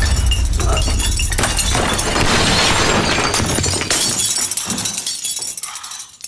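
Shelves of glass bottles shattering as a body is thrown into a back bar: a crash with a deep low end, then a long run of breaking and clinking glass that dies away near the end.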